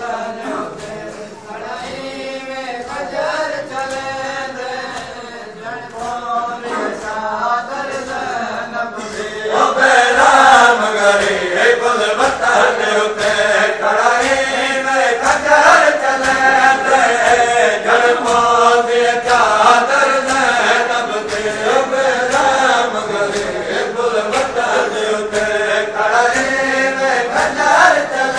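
Men chanting a noha (Shia mourning lament) together, with rhythmic chest-beating slaps (matam) keeping the beat. It grows louder about ten seconds in.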